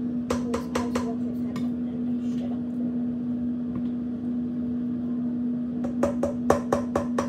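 Steady low hum of a household appliance running, with quick runs of sharp clicks and clatters about half a second in and again near the end.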